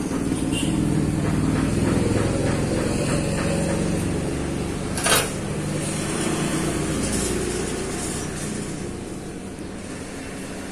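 Low engine rumble of a passing motor vehicle, swelling and then fading away, with one sharp click about five seconds in.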